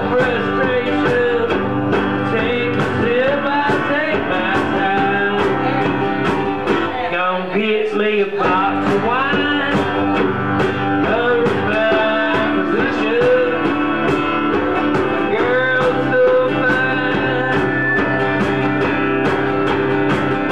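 Live acoustic band music: a strummed acoustic guitar and a steady hand-drum beat, with a wavering lead melody line over them.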